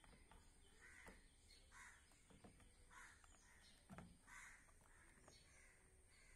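Faint bird calls repeating about once a second, with a few light knocks from a plastic car side mirror being handled and pressed against the door, the loudest knock about four seconds in.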